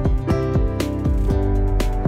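Background music with a steady beat of about two strikes a second under held melodic notes.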